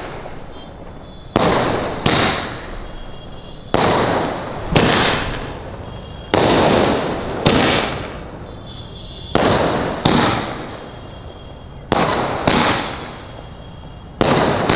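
A 30-shot aerial firework cake firing shell after shell: about eleven sharp bangs, mostly in close pairs recurring every two to three seconds, each dying away over a second or so.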